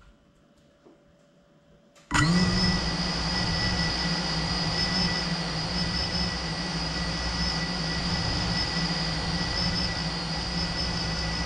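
Geprc Cinelog 35 cinewhoop's four brushless motors arming and spinning up abruptly about two seconds in, then holding a steady idle whine while the drone sits on the ground.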